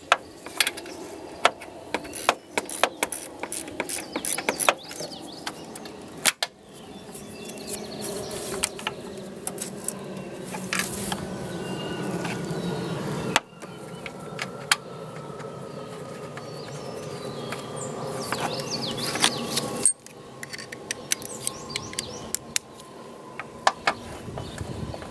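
Irregular sharp metal clicks and knocks of hand tools working on a car's air-conditioning lines, with birds chirping in the background.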